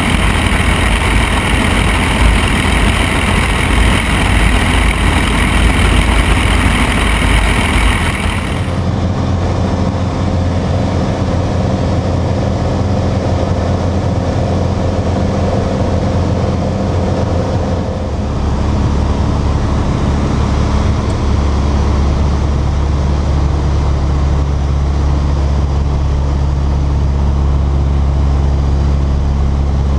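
Piper Archer III's four-cylinder Lycoming O-360 engine and propeller droning steadily in the cabin in cruise flight. A loud hiss lies over it for the first nine seconds or so and stops abruptly, and the low drone changes about eighteen seconds in.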